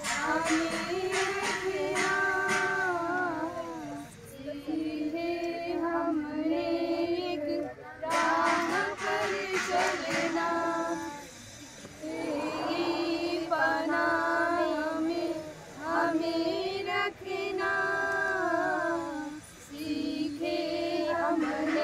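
A small group of young women singing a song together, unaccompanied, in phrases of a few seconds with short breaks for breath between them.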